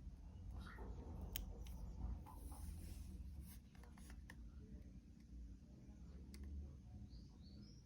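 Faint handling sounds: scattered light clicks and rubbing of small plastic parts as a budget smartphone and its battery are handled.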